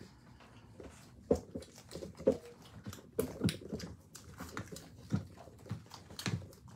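A mother dog and her litter of puppies making short, irregular grunts, squeaks and low growls as they jostle together.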